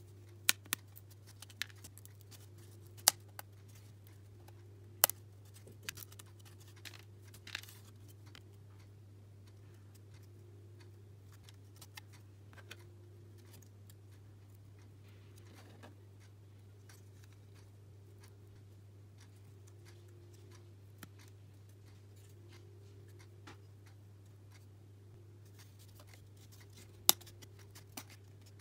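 Sharp, scattered clicks and snaps of thin laser-cut plywood puzzle pieces being pressed out of their sheet and handled, bunched in the first several seconds and again near the end, over a steady low hum.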